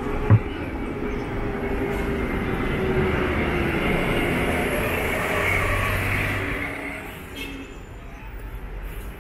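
City street traffic: a vehicle passes on the wet road, its tyre hiss and engine noise swelling and then fading away after about seven seconds. A single sharp knock sounds just after the start.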